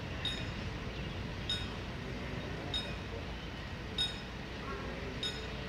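Level-crossing warning bell ringing at an even pace, a short metallic ding about every one and a quarter seconds, five times, over a steady low rumble.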